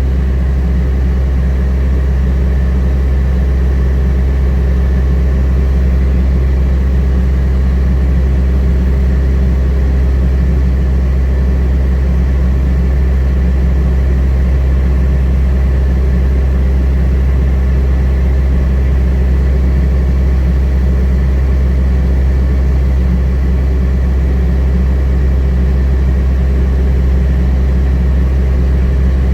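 Heavy diesel engine running steadily at an even speed, a loud, unchanging low hum.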